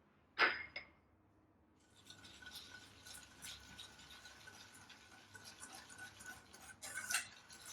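Hand whisk beating egg yolks and sugar in a bowl: faint, quick scraping and tapping strokes that start about two seconds in and run on steadily. A short, sudden sound comes just after the start.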